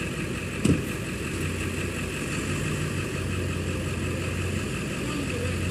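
Truck engine running steadily, with one sharp thump a little under a second in.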